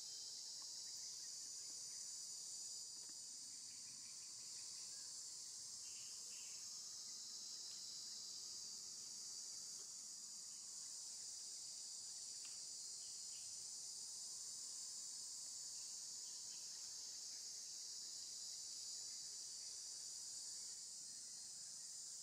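Steady, continuous high-pitched insect chorus, an even shrill buzz that does not let up.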